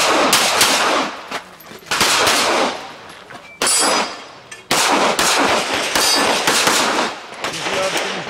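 Handgun shots fired in quick strings, several a second, with short pauses between groups; each shot trails off in a brief echo.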